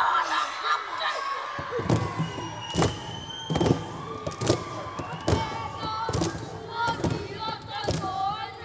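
Group of children performing a haka: bare feet stamping on the stage about once a second, with shouted chanting voices.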